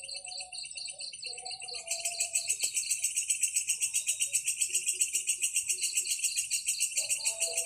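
Insects chirping in a high-pitched chorus: a steady pulsed chirp, joined about two seconds in by a louder, rapid rattling trill of about eight pulses a second. Faint lower notes sound underneath.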